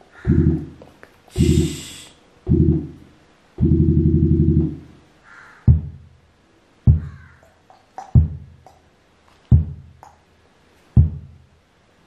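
Sony BDV-N9200W home theatre playing its auto-calibration test signals through the subwoofer, measured by the setup microphone. First come four low, buzzy tone pulses, the last held for about a second, then five short, sharp low thumps spaced a little over a second apart. A brief burst of high hiss comes about one and a half seconds in.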